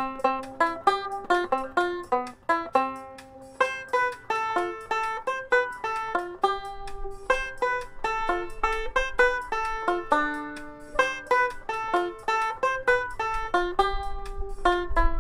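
Ome tenor banjo played solo, picking a lively fiddle-tune-style melody as a quick stream of single bright notes, each struck sharply and fading fast. A low rumble sits under the notes near the end.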